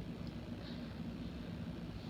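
Quiet, steady low background hum of room noise, with two very faint soft sounds in the first second.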